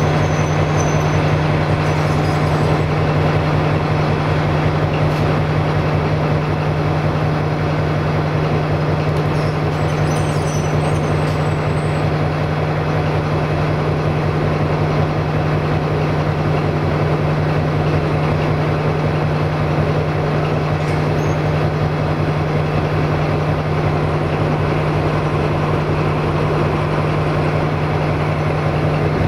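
M41 class diesel-hydraulic locomotive's V12 diesel engine running at a steady low speed with an even low hum, the locomotive creeping along while shunting.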